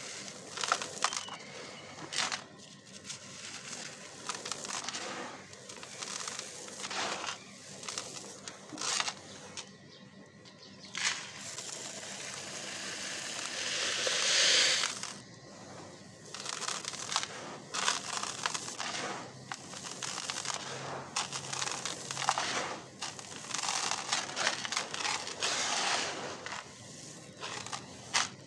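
Dry, gritty red dirt being crumbled and sifted by hand in a tub: uneven crunching and rustling of grains, handful after handful. About halfway through, a longer pouring hiss swells as a stream of dirt falls back onto the pile.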